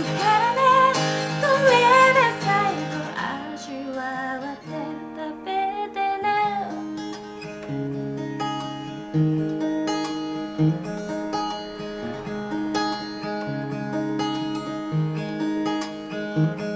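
Acoustic guitar played under a woman's singing for the first few seconds. The guitar then carries on alone as an instrumental passage of picked and strummed notes.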